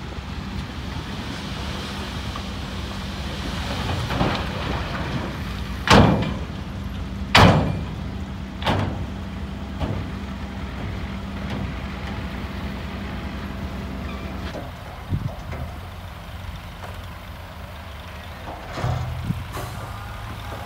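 Heavy diesel dump truck engines running while the trucks tip loads of rock and dirt, with two loud heavy bangs about six and seven and a half seconds in and a few lighter knocks after them as the load comes off.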